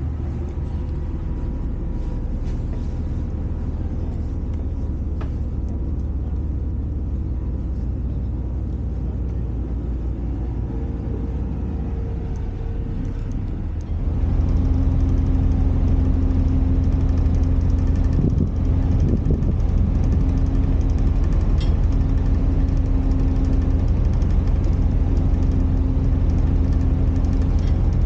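Steady low rumble of a car ferry's engines heard from the open deck. About halfway through it turns louder, with a steady hum on top, as the ferry is under way.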